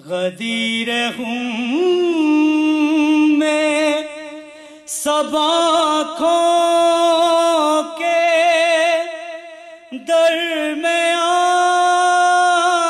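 A man's solo voice chanting a devotional recitation unaccompanied over a microphone, holding long wavering notes in three drawn-out phrases with short pauses between.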